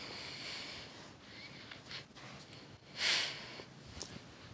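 A person breathing and sniffing close to the phone microphone, in a few breaths, with one louder, sharper exhale about three seconds in.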